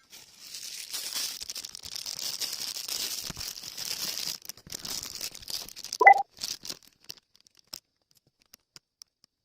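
Crackling, crinkling rustle, like something plastic or cloth being handled close by. About six seconds in there is a short squeak, the loudest sound, followed by a few scattered small clicks.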